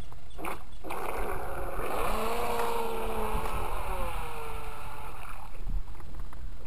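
Radio-controlled speedboat's motor spinning up into a high whine as the boat pulls away from the shallows, the pitch sliding slowly lower as it speeds off, over a steady low rumble of wind on the microphone. A few sharp knocks come in the first second.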